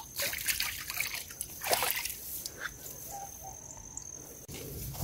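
Feet wading through shallow field water, with irregular small splashes and sloshing.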